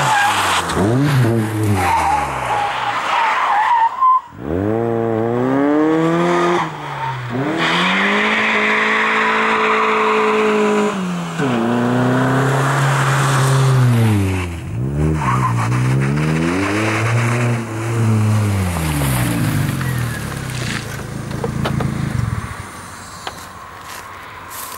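Mazda 323F's 1.8-litre 16-valve FP engine and exhaust under light load, revving up, holding, and dropping back several times, with a sudden break in the engine note about four seconds in. The sound dies away over the last few seconds.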